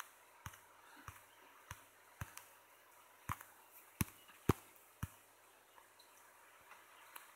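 Faint, sharp taps on a tablet touchscreen, about ten of them at irregular intervals, the loudest about four seconds in.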